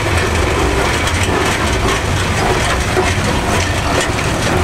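Steam traction engine running: a dense, steady mechanical clatter over a low, pulsing beat.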